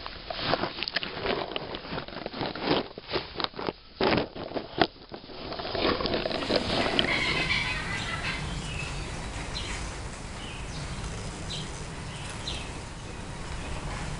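Crackling and scraping in dry leaf litter, a quick run of sharp clicks over the first few seconds, as a Javan hawk-eagle strikes and grapples with prey on the ground. After that comes a steadier noise with a few faint, short high chirps.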